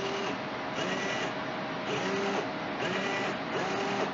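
Hitec high-torque hobby servo whirring in short repeated bursts, about two a second, its motor whining up or down in pitch as the horn swings back and forth. It is driven by an EMG muscle sensor's signal from the flexing arm. A steady faint hum runs underneath.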